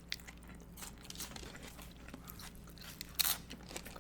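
Tortilla chips of loaded nachos being chewed close to the microphone: a run of small crisp crackles, with one louder crunch about three seconds in.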